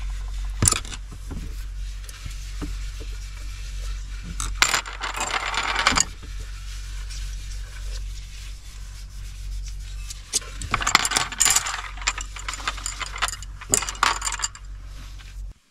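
Tableware being handled and cleared from a table: light clicks and clinks of stainless steel mugs, wooden bowls and chopsticks, with chopsticks rolling on the tabletop. Two longer stretches of rubbing or rustling come about five seconds in and again near eleven seconds, over a steady low hum.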